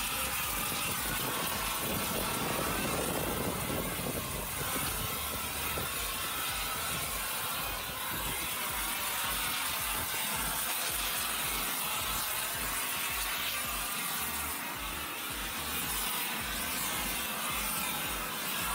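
Propane torch burning with a steady hiss, preheating a cast iron semi-truck brake drum so it can be welded with nickel-iron rod.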